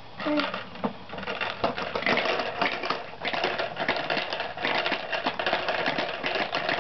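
Rapid, irregular clattering and rattling of small hard objects, starting about a second in and going on steadily, after a short baby babble at the very start.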